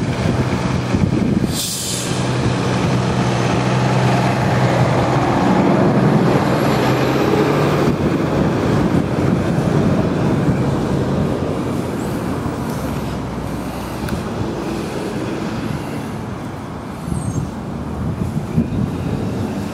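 A large vehicle's engine running with a steady low hum over wind and traffic noise; the hum fades out about halfway through. A brief hiss comes about two seconds in.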